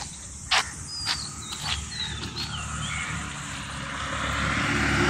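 A few sharp clicks and short high bird chirps, then a road vehicle approaching, its noise growing steadily louder over the last second or two.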